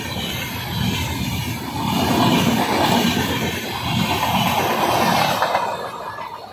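Passenger train coaches running past at speed: a rushing noise with a rhythmic clatter of wheels over rail joints. The sound falls away near the end as the last coach goes by.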